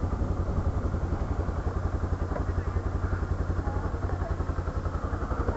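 Honda CB300 motorcycle's single-cylinder engine running at low revs, a steady rapid low pulsing that does not change.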